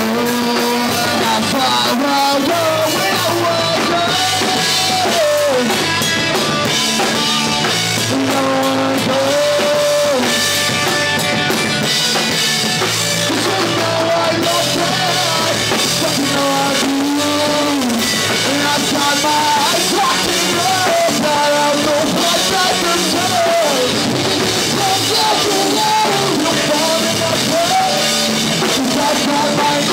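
Live rock band playing a song: drum kit, electric guitars and a singer, loud and steady throughout.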